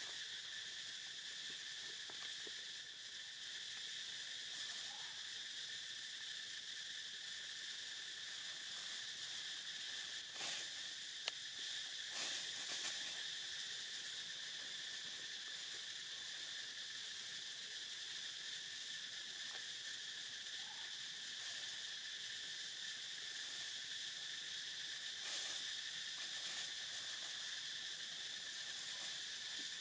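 Steady chorus of insects trilling continuously, with a few short knocks or rustles about a third of the way in and again near the end.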